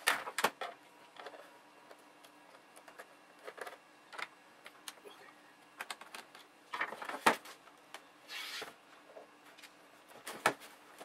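Scattered light clicks and taps of a screwdriver and small screws being taken out of the plastic underside of an HP G50 laptop, with a louder clatter about seven seconds in and a short scrape soon after.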